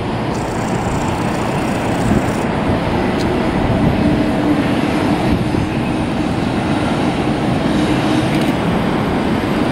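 Jet airliner engines running: a steady, loud rush of noise with a faint low hum.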